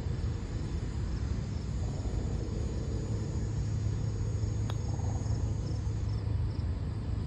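A putter strikes a golf ball with a single sharp click about four and a half seconds in. Under it, insects chirp in a regular rhythm over a steady low rumble.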